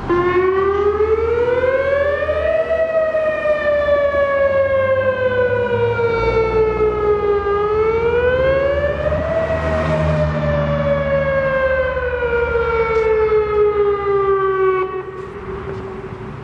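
Whelen 2903 electronic outdoor warning siren sounding its wail tone: a rich, horn-like tone that slowly rises and falls in pitch twice, each swell taking about seven seconds. Near the end it settles at its lowest pitch and drops in level.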